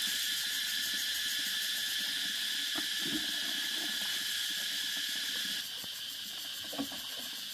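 Steady high-pitched chirring of an insect chorus, with a few faint short sounds over it; it drops a little in level about five and a half seconds in.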